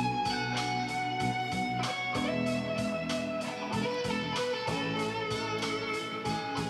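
Playback of a recorded electric guitar solo over a backing track with a steady beat. The lead holds long notes that step down in pitch across the phrase.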